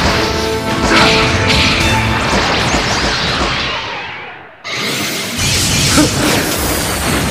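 Tokusatsu fight-scene soundtrack: dramatic background music layered with crashing and whooshing sound effects. It fades down about four seconds in, then dense, noisy effects cut back in abruptly, with a sharp hit about six seconds in.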